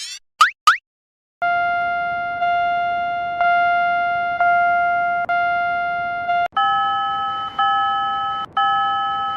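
Two quick rising boing chirps, then a synthesized level-crossing warning tone dinging about once a second, each ding fading out; about two-thirds through it switches to a different, higher tone at the same pace.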